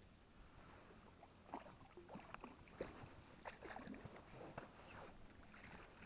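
Faint, irregular small splashes and knocks of water at a boat while a hooked pike is played on a spinning rod.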